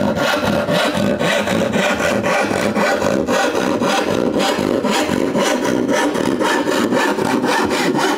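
Freshly sharpened Spear and Jackson crosscut hand saw cutting through a laminated sheoak hardwood board in continuous, even strokes. It cuts quickly and easily without binding.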